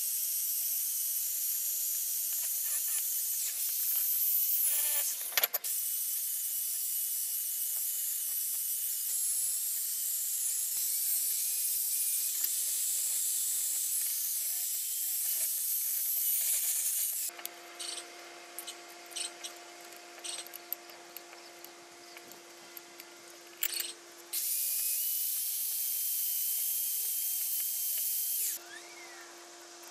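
Wire cup brush on a cordless drill scrubbing rust off the parts of an old Dawn Tools bench vice, a steady high grinding hiss. After about 17 seconds it drops to a quieter hum with light clicks. It comes back for about four seconds near the end.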